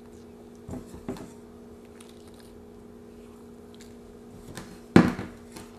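Shredded cheese being sprinkled by hand onto a parchment-lined baking sheet: a couple of faint soft pats over a steady low room hum. A short, louder noise comes about five seconds in.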